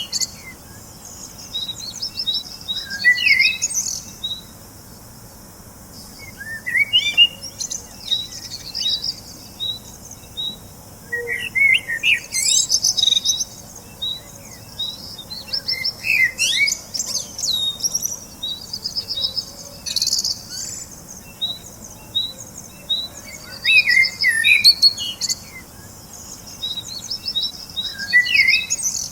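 Several birds chirping and singing: steady series of short high notes, brief rapid trills, and downward-sweeping calls that come back every few seconds.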